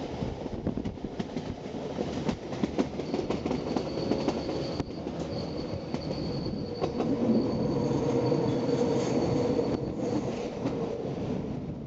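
Rhaetian Railway Bernina line train running, heard from a carriage window: a steady rumble of wheels on rails with quick clicks over the track. From about three seconds in a thin high wheel squeal is heard, typical of the train rounding a curve.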